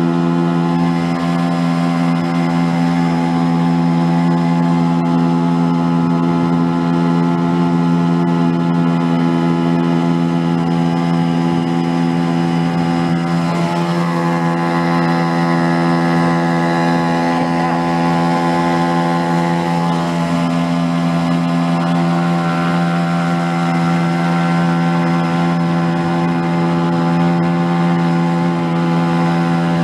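Small boat motor running at a steady speed and even pitch, with a haze of water and wind noise over it.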